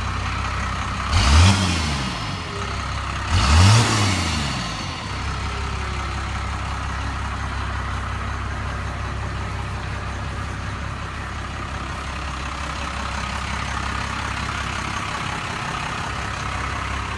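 Cummins diesel engine in an old Dodge pickup idling steadily, revved twice in quick blips, about a second in and again about three and a half seconds in, each dropping straight back to idle.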